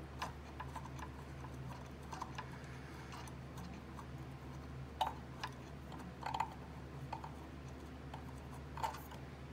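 Scattered small clicks and taps as a screw and hand tools are handled on a workbench while a TV power-supply component is removed, a few louder taps among them, over a steady low hum.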